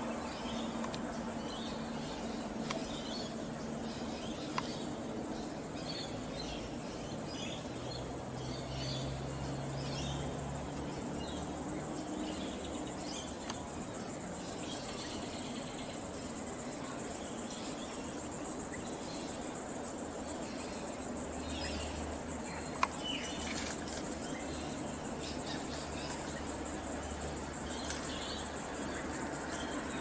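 Outdoor background of many short, high chirps scattered throughout, over a faint low steady hum, with a couple of single clicks.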